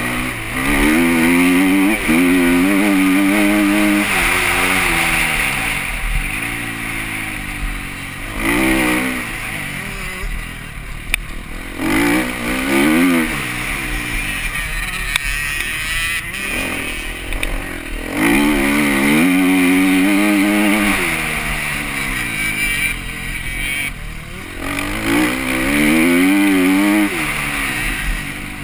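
Husqvarna 250 TC motocross bike engine revving hard up through the gears and backing off, again and again, as the bike accelerates down straights and slows into turns, heard from the rider's helmet camera.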